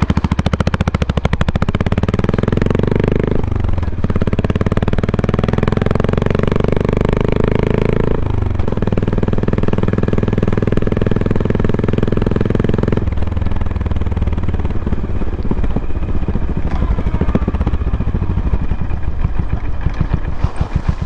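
Honda GB350's air-cooled single-cylinder engine running under way, its fast steady firing pulses carrying a pitch that drops sharply twice, about four and eight seconds in, as at gear changes. After about thirteen seconds the note settles lower and softer.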